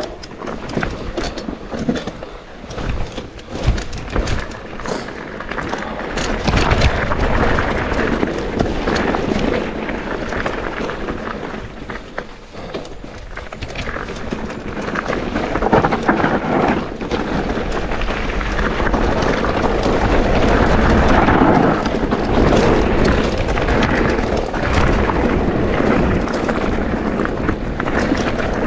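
Mountain bike descending a dirt bike-park trail: rolling tyre noise and rattling, with wind rumbling on the camera microphone, louder from about six seconds in.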